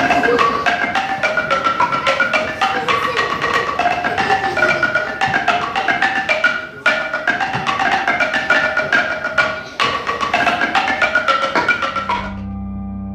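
Background music of quick, short struck pitched notes in a running melody, giving way about a second before the end to a steady held tone.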